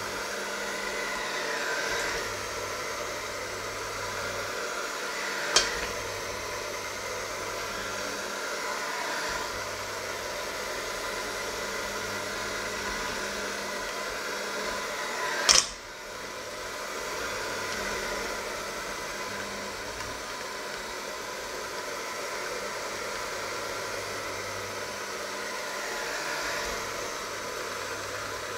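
Electric hand mixer running steadily, its beaters churning a mixture in a stainless steel bowl. Two sharp knocks, about five seconds in and again about ten seconds later, the second the loudest.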